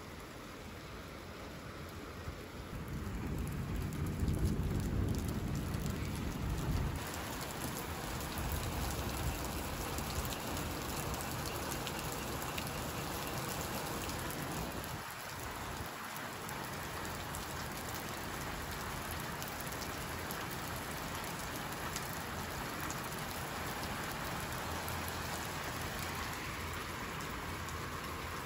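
Heavy downpour: a steady, dense hiss of rain pouring down. A low rumble swells and fades between about three and seven seconds in.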